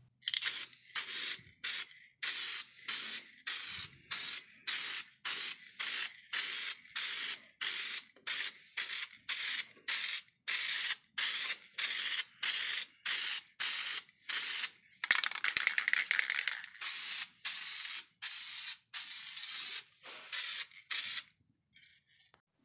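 Aerosol can of Mod Podge high-shine acrylic sealer spraying in short hisses, about two a second, with one longer spray of a second or so about fifteen seconds in. It is laying a clear gloss coat.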